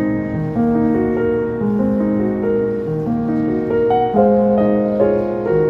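Background music: a slow melody of held notes that change every half second or so.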